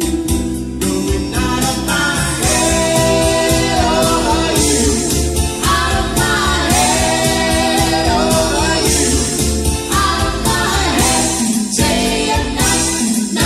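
Two women singing into microphones over instrumental accompaniment with a steady beat.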